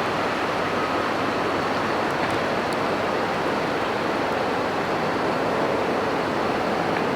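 Steady rushing noise, even throughout, with a faint high steady tone that stops about a second in.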